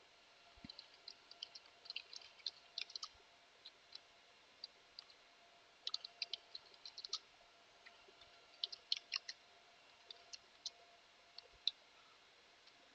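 Faint keystrokes on a computer keyboard: light, irregular clicks in short runs, typing terminal commands.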